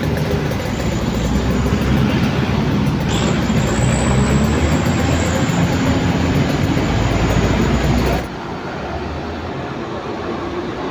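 Heavy vehicle's diesel engine labouring on a steep climb: a loud, steady, deep rumble that drops abruptly to a quieter level about eight seconds in.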